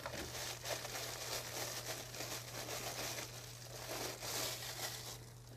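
Clear plastic packaging bag crinkling and rustling as hands open it and pull out the camera mount.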